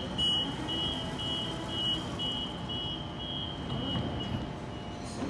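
Double-deck Sydney suburban train's door-closing warning: a high beep about twice a second, fading out about four and a half seconds in as the sliding doors shut.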